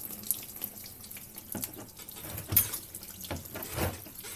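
Engine coolant pouring and splashing out of a Lexus 1UZ V8 where the water pump has been loosened, a running stream with irregular splashes and drips.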